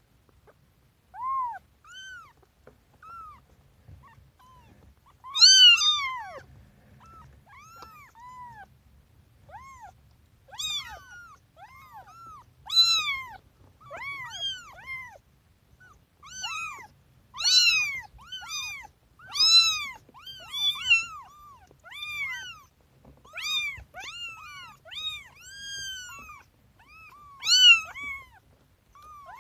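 Kittens meowing over and over: short, high-pitched mews, each rising and falling in pitch, sometimes overlapping as more than one calls at once.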